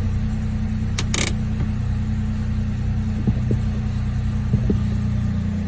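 2017 Mini Cooper engine idling, a steady low hum heard from inside the cabin, with two short clicks about a second in.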